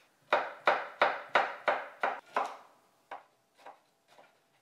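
Chef's knife thinly slicing cucumber and starfruit on a wooden cutting board: a quick run of about eight cuts, each ending in a knock of the blade on the board, then a few fainter cuts in the second half.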